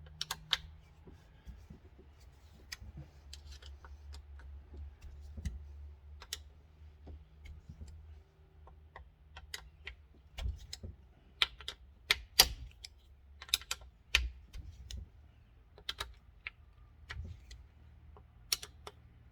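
Irregular sharp clicks and clinks of hand tools on metal as bolts are worked loose with a 5 mm wrench on a two-stroke Sea-Doo engine, over a steady low hum.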